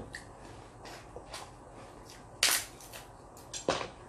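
Snow crab leg shells being cracked and snapped apart by hand: a few sharp cracks, the loudest about two and a half seconds in and another just before the end, with fainter clicks between.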